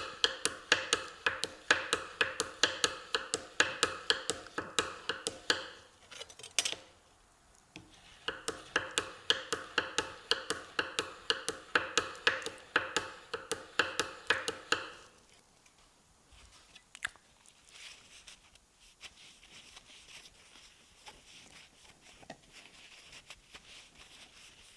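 Steel burnisher stroked back and forth flat along the face of a steel card scraper, drawing out the metal at the edge, with a ringing tone under each stroke. About three strokes a second in two runs, with a pause about six seconds in, then it stops about fifteen seconds in and only faint handling sounds follow.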